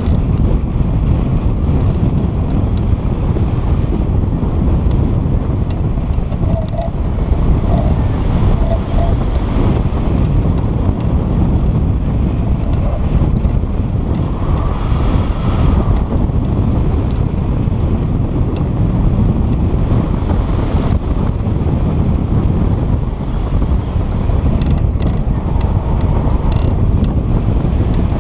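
Loud, steady wind buffeting on the microphone, with a few faint ticks near the end.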